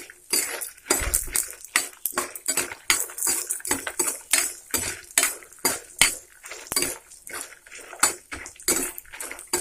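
Steel spatula scraping and clinking against a stainless-steel kadai in quick, irregular strokes. It is stirring peanuts, chana dal and dried red chillies frying in a little oil until they turn reddish.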